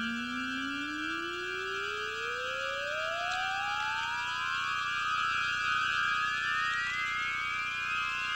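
Synthesized sci-fi sound effect: a steady electronic drone of high held tones with a pure tone gliding slowly and smoothly upward in pitch throughout.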